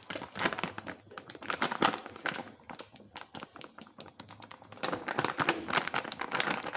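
Flour poured into a stainless steel bowl, heard as a dense, irregular patter of small clicks and rustles. It comes in two spells: one in the first two and a half seconds, and another from about five seconds in.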